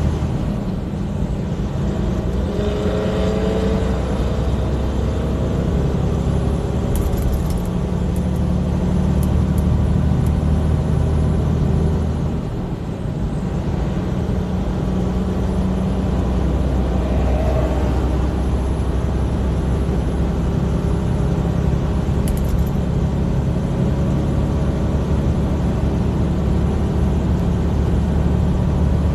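Heavy truck's diesel engine and road noise droning steadily inside the cab at highway speed. The low hum dips briefly a little past the middle, then carries on.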